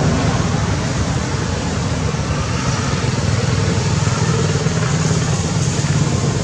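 Steady low mechanical rumble with an even hiss over it.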